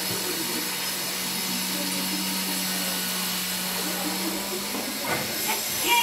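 Steady hiss with a low hum and faint distant voices; in the last second, a few short sharp calls from a red-vented bulbul.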